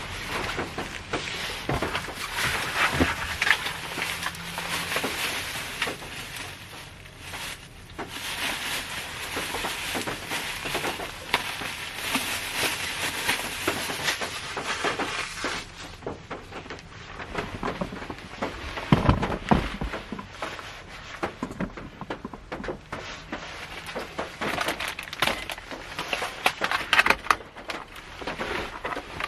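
Rain pattering on the roof of a Honda Step Wagon minivan, heard from inside the cabin: a dense, uneven patter of drops, heavier at times, with one louder low thump about two-thirds of the way through.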